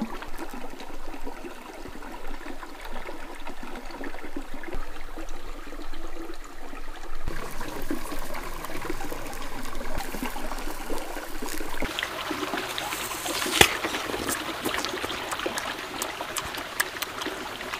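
Creek water trickling steadily over stones, with scattered small crackles. In the last third, close-up biting and chewing of a fire-roasted apple, with one sharp bite standing out.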